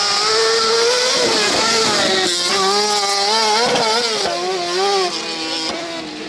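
Car-cross buggy's high-revving motorcycle engine at full throttle, its pitch climbing and dropping again and again through gear changes and throttle lifts as it accelerates up a gravel track. It grows fainter near the end as the buggy pulls away.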